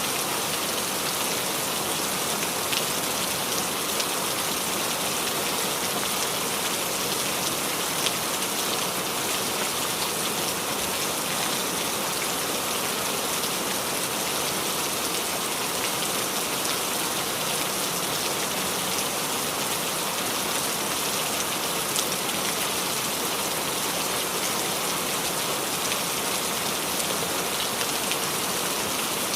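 Steady rainfall pattering on leaves, with scattered individual drips ticking through the even hiss of the rain.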